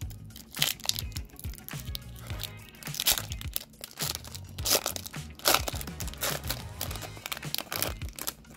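The foil wrapper of a Tim Hortons Legends hockey card pack crinkles and crackles in many short sharp bursts as it is torn open and peeled apart by hand, over quiet background music.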